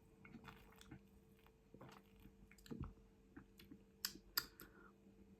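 Faint mouth sounds of someone sipping milk through a flavoured drinking straw: soft wet clicks and smacks, with a couple of sharper clicks about four seconds in.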